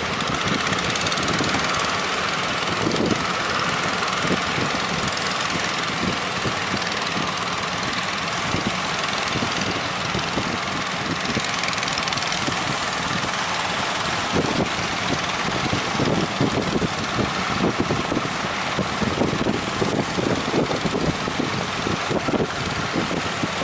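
Fishing boat engine running steadily.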